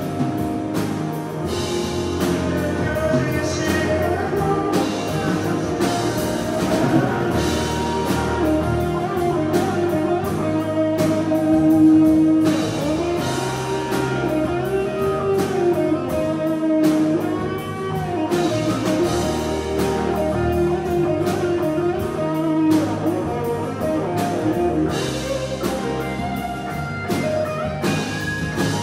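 Live rock band playing: acoustic and electric guitars, bass, drum kit and keyboard, with a melodic line sliding in pitch over a steady beat.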